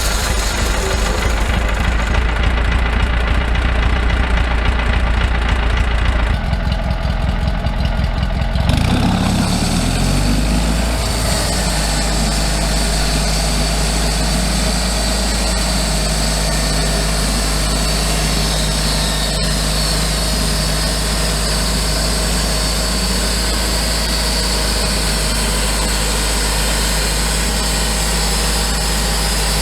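Engine of a homemade sawmill running hard for about nine seconds, then settling back to a steady idle for the rest.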